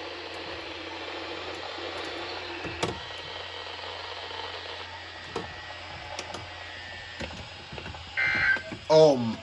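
Weather radio receiver playing steady static hiss with a few faint clicks, a sign that the station's broadcast has dropped out. Near the end a short burst of buzzy, beeping tones starts.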